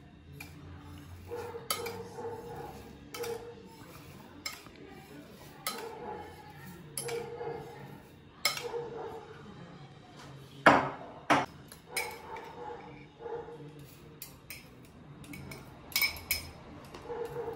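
A metal spoon clinks and scrapes against a glass bowl as sugar is scooped out and tipped into a large stainless steel basin. It repeats about once every second or so, with one louder clink a little past halfway.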